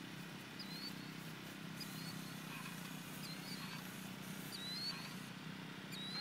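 A bird calling over and over, a short high note that dips and then rises, about once a second. A steady low hum runs underneath.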